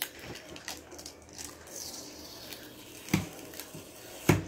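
Sticky tape being picked at and peeled off the plastic football-shaped dome of a new popcorn maker, with faint crinkling and scattered small clicks. There are two sharper clicks, about three seconds in and near the end.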